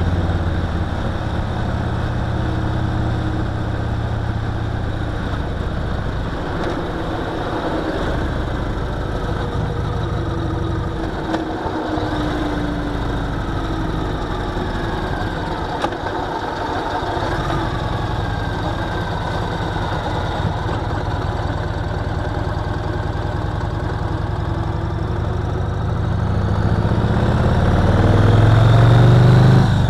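Yamaha Roadliner's big air-cooled V-twin motorcycle engine running at low revs, lighter through the middle. Over the last few seconds it gets louder and rises in pitch as the bike accelerates.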